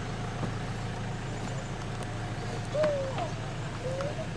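A steady low mechanical hum, like an engine running, with two short rising-and-falling voice-like sounds about three and four seconds in.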